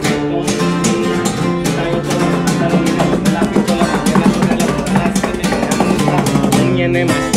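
Several acoustic guitars playing an instrumental passage together, plucked and strummed in a steady rhythm.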